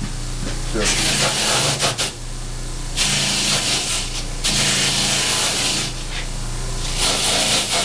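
Electric motor spinning a wire brush wheel with a steady hum, while the suede of a tan combat boot is pressed against it in several scrubbing passes of a second or so each, giving a loud scratchy hiss. The wheel is roughing up and cleaning the suede nap.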